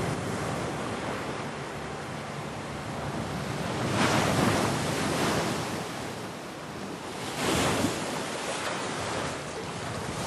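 Ocean surf washing in, with wind. A wave surges about four seconds in and another about seven and a half seconds in.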